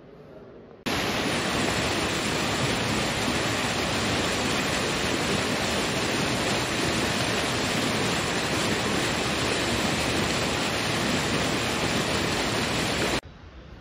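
Fast, shallow stream rushing and splashing over rocks: a steady, loud rush of water that starts abruptly about a second in and cuts off just before the end.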